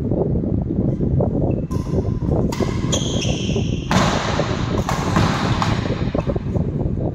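Badminton rally on a wooden indoor court: sharp hits of rackets on the shuttlecock, with players' footwork and shoe squeaks, mostly between about two and six seconds in. A steady low rumble runs underneath throughout.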